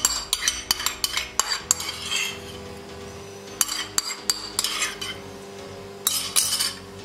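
A metal spoon clinking and scraping against a dish as green chilli paste is spooned onto chopped greens in a pressure cooker, in three bunches of quick sharp clinks.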